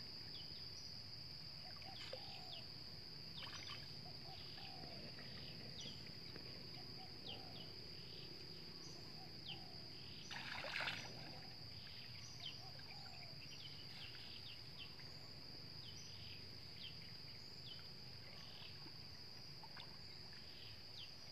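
Steady high-pitched drone of insects, with faint scattered water sounds as a cast net is hauled in through shallow water, and a brief louder rush of noise about eleven seconds in.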